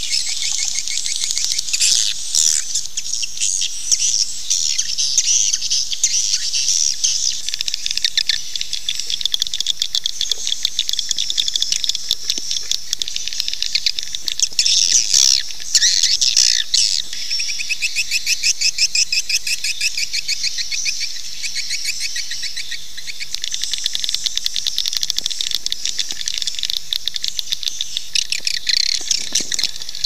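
Recorded swiftlet calls: a dense, continuous, high-pitched twittering of rapid chirps. This is the lure call played in swiftlet houses to draw the birds in to roost and nest.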